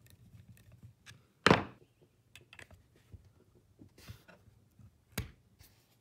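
Handling sounds as a flow restrictor, gripped by a screw driven into it, is pulled out of a metal shower head handle with needle-nose pliers: light metal clicks, a loud thunk about one and a half seconds in, and a sharper knock near the end.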